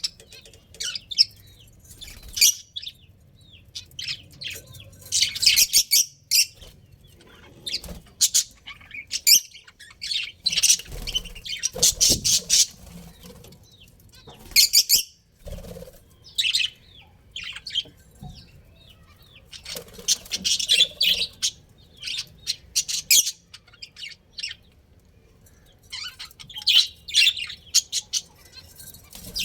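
Budgerigars chirping and chattering in quick, high-pitched bursts that come and go, with an occasional flutter of wings.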